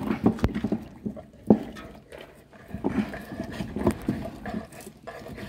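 Dog gnawing and crunching on a large raw meaty bone, with irregular sharp cracks and knocks as its teeth work the bone.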